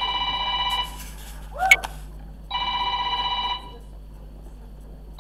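Telephone ringing: two rings about a second long each, with a fast trill, about two and a half seconds apart. Between them comes a brief sharp sound that rises in pitch.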